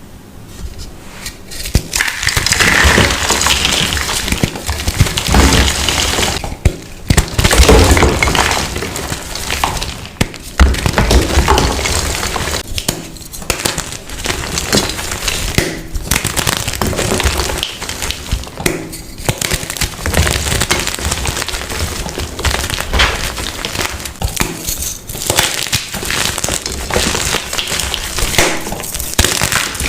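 Blocks of dyed, reformed gym chalk being crushed and crumbled: dense crisp crunching and crackling, broken by several brief pauses between crushes.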